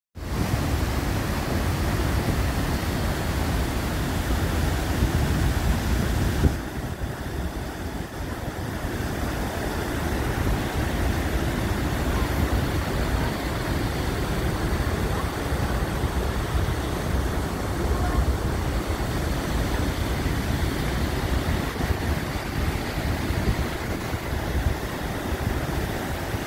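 Niagara Falls' water rushing steadily over the brink, heard close up as a dense hiss with a heavy low rumble. From about six and a half seconds in, the sound turns a little quieter and duller.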